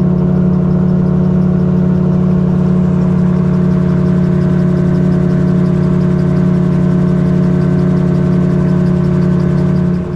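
Magni Gyro M16 gyrocopter's engine and pusher propeller droning steadily at cruise power, heard from the open cockpit with wind noise over it. The sound dips briefly near the end.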